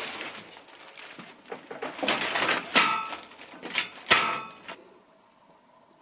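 Plastic film wrapping on an ironing board rustling and crinkling as it is handled, with two sharper, louder crackles or squeaks about three and four seconds in. It stops abruptly near the end, leaving only a faint background hum.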